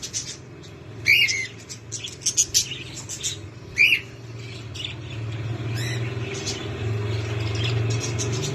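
Alexandrine parakeets calling: many short chirps with two loud harsh squawks, about a second in and near four seconds. A low steady hum grows louder from about halfway.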